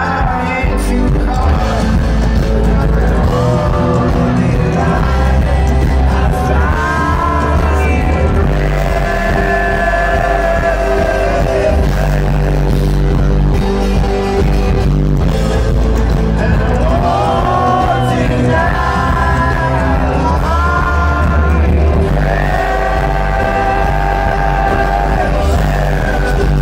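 Live band playing amplified, with guitars, keyboards, bass and drums, and a singer's long phrases with held notes over it.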